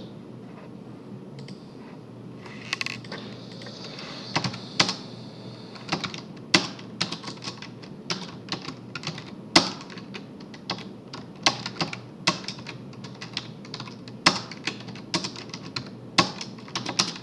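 Typing on a computer keyboard: irregular keystrokes in quick runs and pauses, starting a couple of seconds in.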